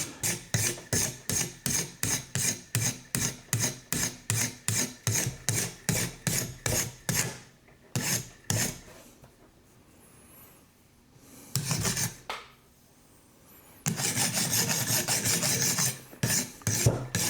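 A TSProf Alpha sharpening stone on a Kadet guided sharpener is rasped along a knife edge in quick, light, even strokes, about two to three a second, to knock off the burr. The strokes stop after about eight and a half seconds. One short scrape follows near twelve seconds, then a steady, unbroken rasp from about fourteen seconds.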